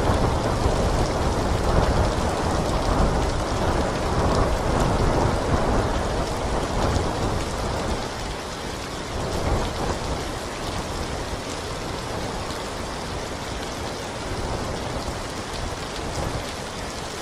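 Heavy rain falling steadily, with a long roll of thunder through the first several seconds that fades away, leaving the rain alone.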